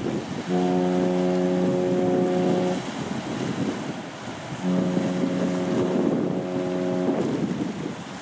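A ship's horn sounding two long, steady blasts of a bit over two seconds each, with wind on the microphone throughout.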